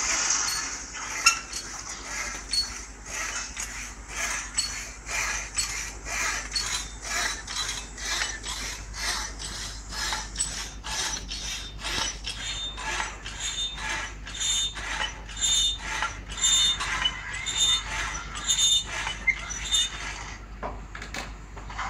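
Pedal-powered hacksaw machine cutting a metal bar held in a vise. The blade rasps back and forth at about two strokes a second, with a brief high squeal on many strokes, and it stops near the end.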